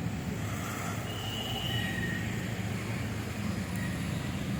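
Steady low rumble of vehicle engines and road noise, with a few faint short high tones.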